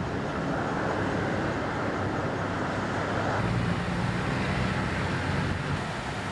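Street traffic: vehicles driving past, with a low engine hum growing stronger through the middle and fading near the end.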